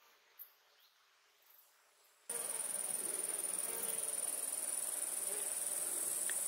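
Near silence with a few faint ticks, then, about two seconds in, a steady high-pitched chirring of meadow insects stridulating in the grass starts abruptly and carries on.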